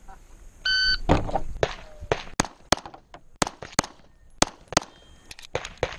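An electronic shot timer beeps once, and a rapid string of pistol shots follows over the next five seconds, many of them fired in quick pairs.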